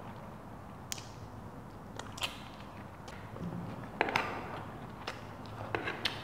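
Close-miked eating sounds: a metal fork clicking and scraping against a plate several times, loudest in a quick double click about four seconds in and a cluster near the end, over soft chewing.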